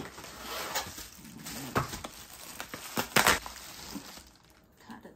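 Rustling as an insulated grocery delivery bag is opened and its contents are handled, with sharp clatters about two seconds in and a louder double one about three seconds in.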